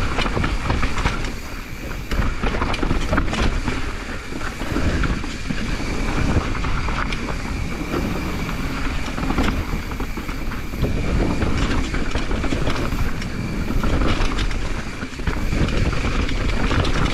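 Devinci Troy mountain bike descending a rough downhill trail: tyres on dirt and rocks, with chain slap and a constant rattle of frame and parts, and many sharp knocks over roots and rocks.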